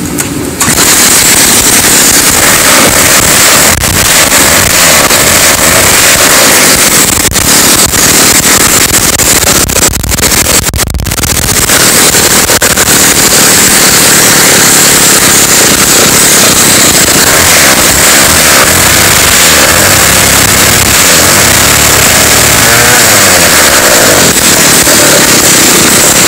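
Jobu Junior chainsaw's two-stroke engine, run without bar or chain, firing up about half a second in and then running loudly and steadily.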